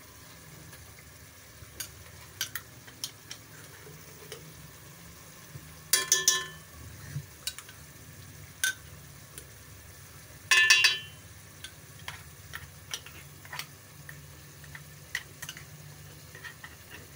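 Ground paste frying in hot oil in a steel pot, sizzling with scattered crackles and pops while a wooden spoon stirs. Twice, about six seconds in and again near eleven, the spoon knocks or scrapes the pot with a brief metallic ring.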